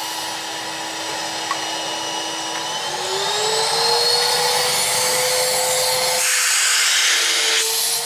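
Vacuum cleaner motor running at low speed, then turned up about three seconds in: its whine rises in pitch, grows louder and holds at the higher speed.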